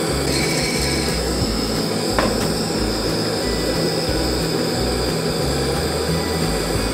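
Propane-fed Trangia gas burner running with a steady hiss under a ceramic coffee roaster, heating the beans, with low background music underneath.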